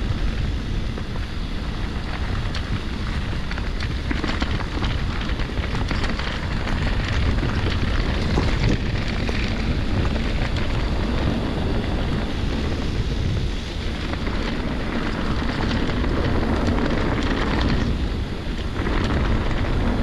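Mountain bike riding a trail: a steady rush of wind on the microphone and rumble from the bike, with many small clicks and rattles throughout.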